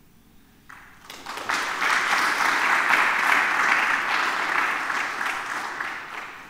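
Audience applauding. It starts about a second in, swells quickly, holds, and dies away near the end.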